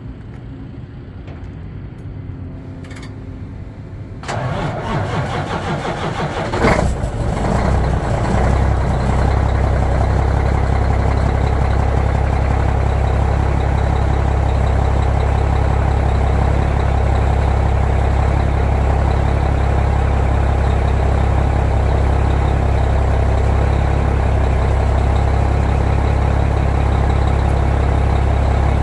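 Kenworth W900's heavy diesel engine being started: a rise in noise about four seconds in, a sharp burst as it catches a couple of seconds later, then a steady, loud idle.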